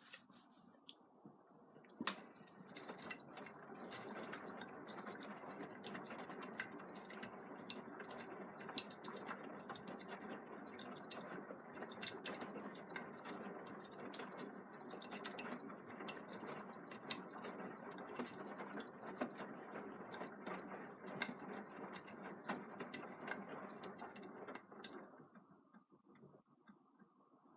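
Beko WM74165W washing machine drum turning on a wash, the load tumbling and sloshing with a stream of small clicks and knocks. It starts about two seconds in, runs steadily, and stops a couple of seconds before the end.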